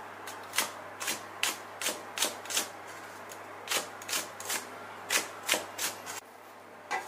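Steel cleaver chopping yardlong beans into small pieces on a thick round end-grain wooden board: a run of sharp knocks, two or three a second, with a short pause about three seconds in, stopping about six seconds in.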